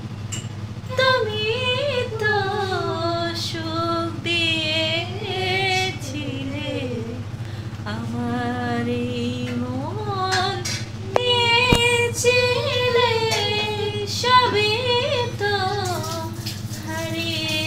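A woman singing a slow Bengali song solo, her voice held on long notes with vibrato, over a steady low hum. There is one sharp click partway through.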